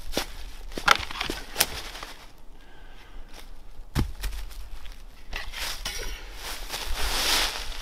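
Dry leaves crunching underfoot and sharp wooden knocks and snaps as firewood is handled, with one heavier thud about four seconds in. Near the end a bow saw starts rasping through a branch.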